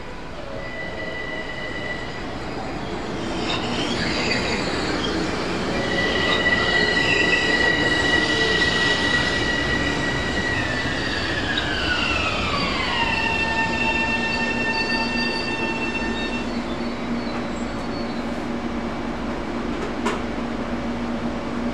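Train moving along the rails, growing louder over the first several seconds, with high steady whining tones that slide down in pitch about halfway through. A lower steady hum follows, and there is a single sharp click near the end.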